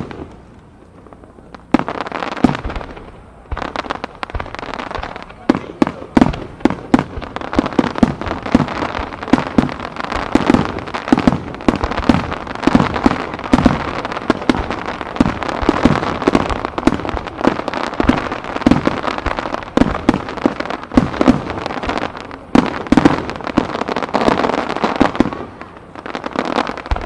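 Starmine fireworks barrage: aerial shells bursting in rapid succession, several bangs a second with crackling between them. It begins with a single bang, a short pause, then the barrage starts about two seconds in and keeps going.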